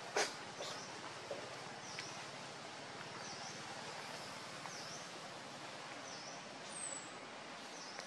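Outdoor ambience: a steady hiss with short high chirps repeating about once a second. A sharp click comes just after the start, and a short falling high whistle near the end.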